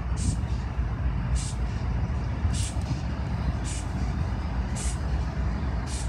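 BNSF freight train approaching: a steady low rumble, with a short hiss repeating about once a second.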